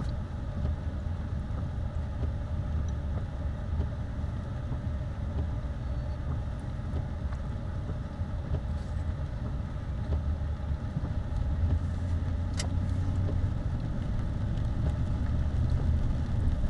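Steady low engine and road rumble of a car driving, heard from inside the cabin, growing a little louder in the second half, with one brief click past the middle.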